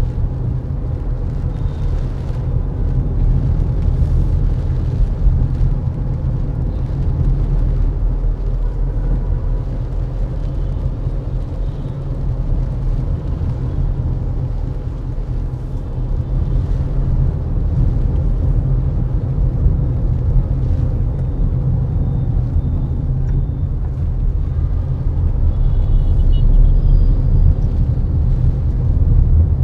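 A car driving, heard as a steady low rumble of engine and road noise that swells a little near the end. There are a few faint short high tones in the last few seconds.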